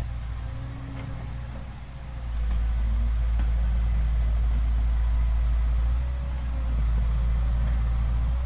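Remote-control toy excavator's small electric motors running, with a thin wavering whine over a deep steady rumble that swells about two seconds in.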